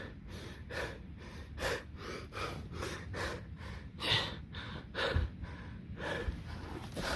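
A man panting hard and fast, out of breath from running, each breath a short rasping gasp at about two to three a second.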